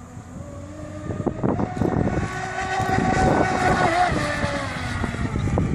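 Radio-controlled fast-electric race boat running at speed, its motor whine growing louder as it approaches and dipping in pitch a little after four seconds in as it goes by. A low rumble of wind on the microphone lies underneath.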